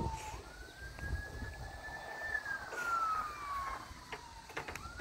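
Emergency-vehicle siren wailing: one tone that jumps up, climbs slowly for about two seconds, then slides down for about two seconds before jumping back up near the end.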